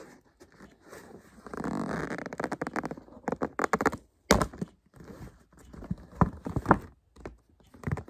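Rustling of packaging as purchases are taken out for unboxing, followed by a run of clicks and knocks as the boxed products are handled and set down. One louder thump comes about four seconds in.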